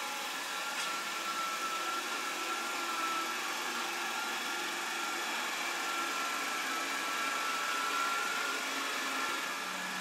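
Proscenic 820S robot vacuum running across a hardwood floor: a steady whir of its suction fan and brush motors, with a faint high whine that drifts slightly in pitch.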